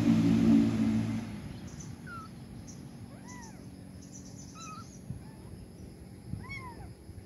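A motor vehicle's engine hum fading away in the first second or so, then a few short, high calls, two of them clear rising-and-falling cries a few seconds apart, with faint chirps in between.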